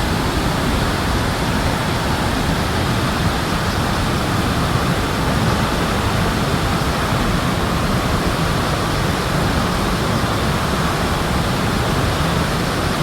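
Steady roar of Victoria Falls, the Zambezi's water plunging into the gorge: an even, unbroken rushing noise.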